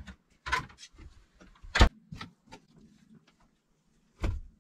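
A few scattered knocks and bumps of things being handled, the loudest a sharp knock a little under two seconds in, and a heavier thump near the end.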